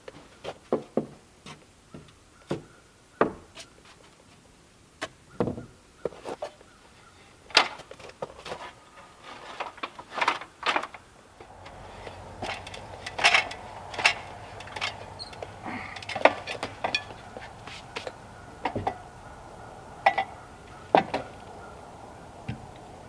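Irregular knocks and clunks of wood being handled during carpentry work, some of them sharp and loud. About halfway through, a steady background hum comes in underneath.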